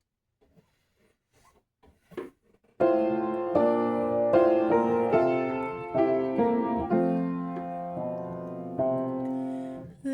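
Piano playing a hymn introduction in block chords, starting about three seconds in after a few faint clicks.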